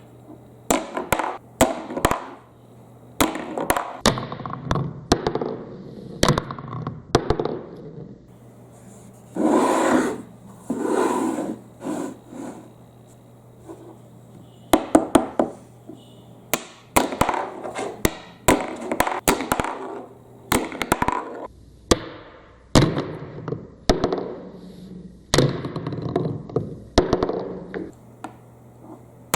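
Marbles clacking and rattling down a plastic marble run: bursts of sharp clicks and knocks, with longer rolling rattles around the middle. A steady low hum sits under the first half.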